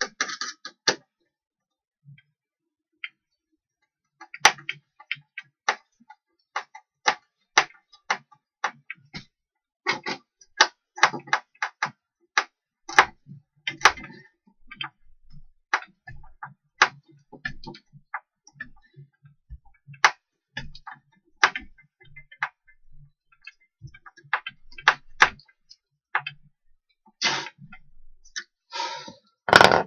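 Hand screwdriver driving a screw into a wooden shelf by hand, with irregular short clicks and creaks as the screw turns and the grip is reset.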